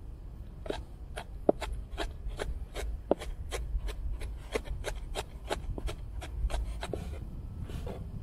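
Large kitchen knife chopping red chillies on a wooden cutting board: a steady run of sharp knocks of the blade on the board, about two to three a second, starting about a second in and thinning out near the end.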